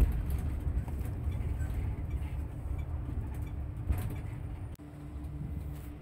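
A bus's engine and road rumble heard from inside the cabin as it drives, low and steady with a faint hum over it. About five seconds in the sound drops abruptly and goes on quieter.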